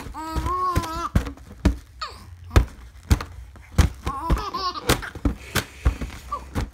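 A baby's hands slapping and batting a foil party balloon, a series of irregular sharp thunks, with the baby's own high-pitched squeals and coos near the start and again about four seconds in.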